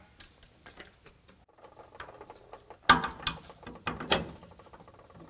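Floor jack raising the rear axle with faint mechanical clicking, then two sharp metal knocks about three and four seconds in as the air bag's upper bracket and carriage bolts are guided up against the frame.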